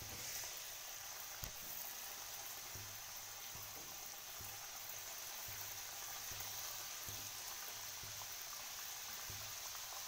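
Sattu-stuffed litti dough balls deep-frying in hot oil in a kadhai: a steady, faint sizzle and bubbling of the oil, with one light click about a second and a half in.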